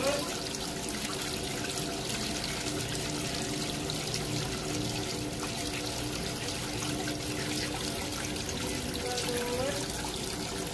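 Water pouring steadily from the open end of a water tank's drain pipe and splashing onto concrete as the tank is drained. A faint steady hum runs underneath.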